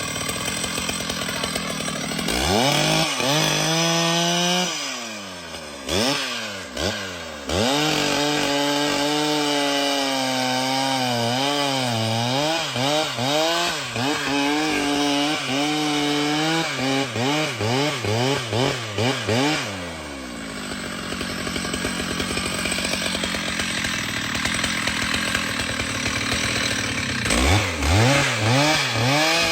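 Chainsaw revving up and cutting wood, its engine pitch wavering under load. It eases off about two-thirds of the way through and revs up again near the end.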